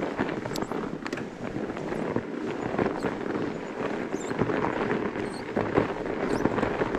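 Fat bike tyres (26 x 5-inch Terrene Johnny 5s) crunching over crusty, icy freeze-thaw snow under a windblown cover: a steady, dense crackle of small snaps.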